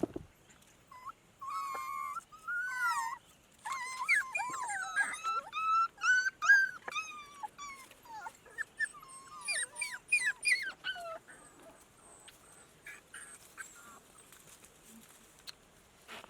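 A dog whining and whimpering in a long run of high-pitched, wavering cries that die away about eleven seconds in.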